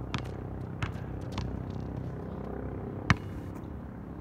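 Basketball bouncing on an outdoor asphalt court: a few light knocks, then one sharp bounce about three seconds in, over a steady low hum.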